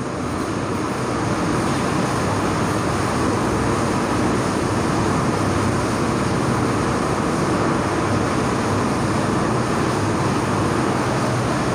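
Cloth duster rubbing across a whiteboard, wiping it clean: a steady rubbing noise that goes on without a break.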